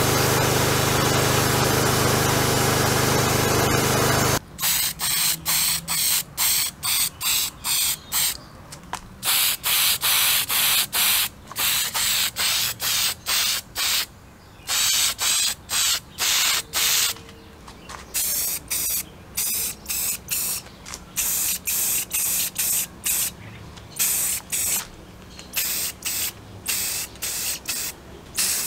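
Abrasive blasting in a blast cabinet, a steady hiss with a hum, stops suddenly about four seconds in. Then an aerosol spray-paint can is sprayed in many short bursts, about two a second, with short gaps, coating a small engine's cooling-fin flywheel.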